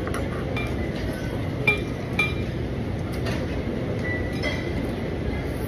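A child's fork clinking against a bowl while eating noodles: two sharp clinks about half a second apart a little under two seconds in, with a few fainter taps around them, over steady room noise.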